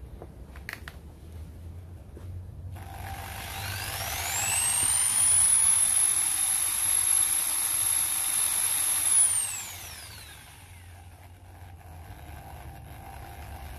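Electric drill spinning a homemade knife tumbler. The whine rises quickly in pitch as it speeds up, runs steady for about four and a half seconds, then falls away as the trigger is released.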